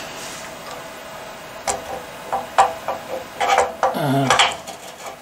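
A handful of light knocks and clinks of hard objects being handled, one after another over a couple of seconds, with a brief murmur of voice about four seconds in.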